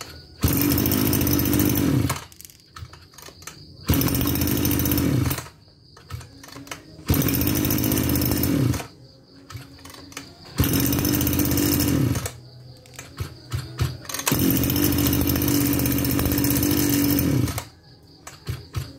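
Maruyama BigM KC26 brush cutter's 26cc two-stroke engine pull-started again and again, firing at once each time, running for a second or two, then cutting out: five starts in a row, the fifth running longest, about three seconds. It starts very easily.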